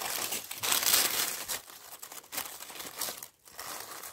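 Dry fallen leaves crackling and rustling as a hand pushes them aside, busiest in the first second and a half, then in shorter scattered bursts.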